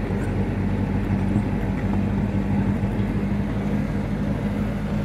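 Rebuilt gasoline inboard engine of an old sailboat running steadily just after being started, at a slightly raised throttle.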